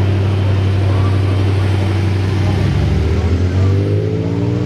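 Big car engine running with a steady low exhaust drone, then revved about two and a half seconds in, its pitch rising and holding up.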